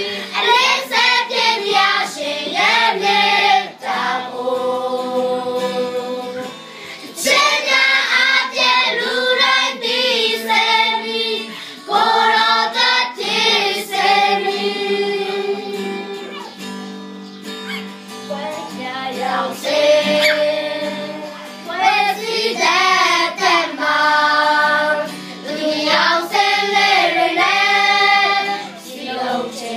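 A group of children singing a song together, some notes held long.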